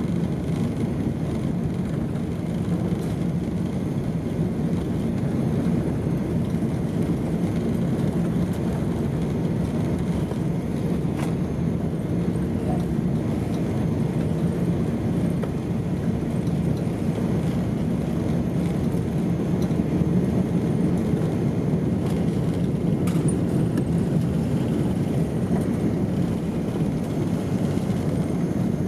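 Cabin noise of an Airbus A380 on its takeoff roll: the Rolls-Royce Trent 900 engines at takeoff thrust and the aircraft rolling down the runway, a steady low rumble that grows slightly louder about two-thirds through.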